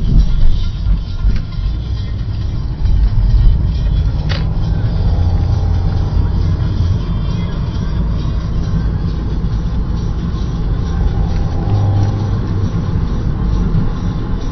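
Toyota MR2 being driven through traffic, heard from inside the cabin: a steady low engine and road rumble. A sharp click comes about four seconds in.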